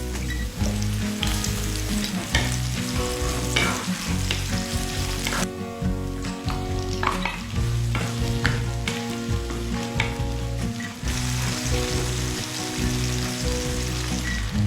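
Food sizzling as it fries in a pan, with a utensil stirring and scraping it at irregular moments.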